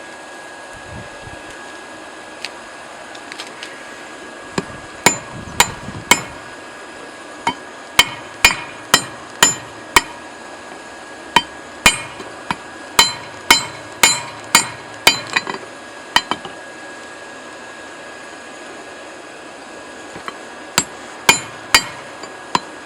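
Hand hammer striking a hot railroad-clip steel bar being drawn into a tapered drift, ringing blows about two a second. They come in two runs with a pause of a few seconds between, over a steady hum.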